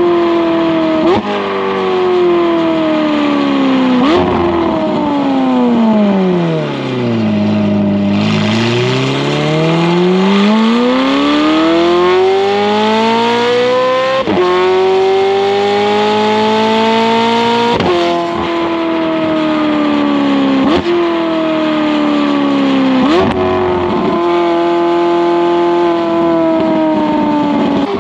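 McLaren 720S twin-turbo V8 through a non-valved titanium double X-pipe exhaust with catless downpipes, high-pitched and heard close up at the bumper while driving. The revs sink as the car slows and jump sharply up at each downshift, about six times. In the middle the note drops to its lowest and then climbs steadily for several seconds under acceleration.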